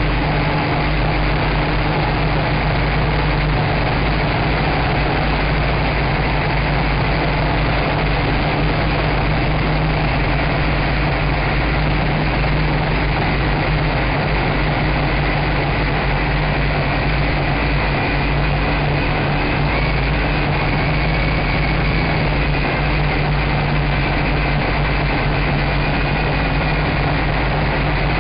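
Nine Eagles MOLA M24 quadcopter's motors and propellers buzzing steadily in flight, picked up by its own onboard camera, loud and close, with a few held low tones under the buzz.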